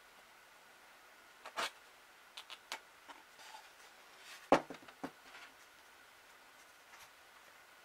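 A wooden beehive frame with wax foundation being handled on a workbench: a few light clicks and taps, and one sharper wooden knock about four and a half seconds in.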